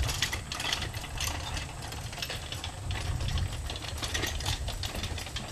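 Low steady hum with irregular mechanical clicking and rattling.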